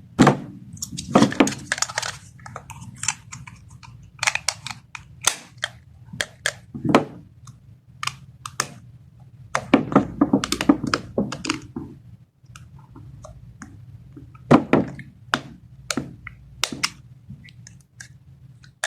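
Plastic toy parts and packaging being handled: irregular clicks, taps and light knocks with some crinkling, a few louder thunks among them.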